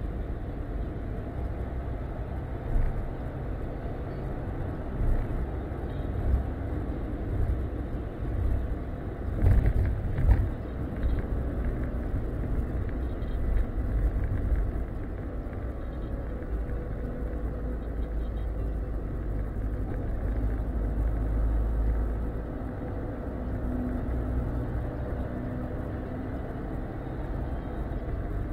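A car driving at road speed, heard from inside the cabin: a steady low rumble of engine and tyre noise, with a few louder bumps about ten seconds in.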